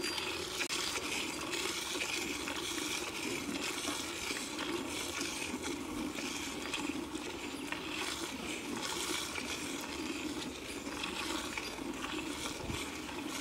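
Milk squirting from a cow's teats into a steel pail during hand milking: a steady run of quick splashing squirts into milk already in the pail.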